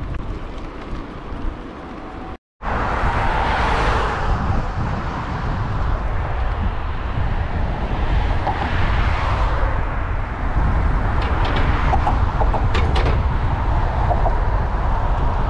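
Wind buffeting the microphone, with rolling noise, while riding a bicycle. It drops out briefly about two and a half seconds in and comes back louder.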